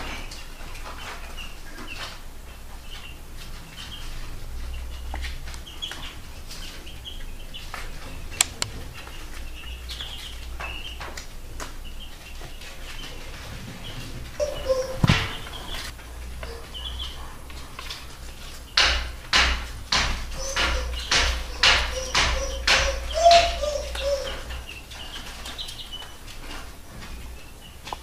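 Chicks peeping faintly and repeatedly while a broody hen gives low, drawn-out calls. A louder call comes about halfway through, and in the second half there is a run of rustling strokes as the hen shifts over her chicks, with her low calling running under them.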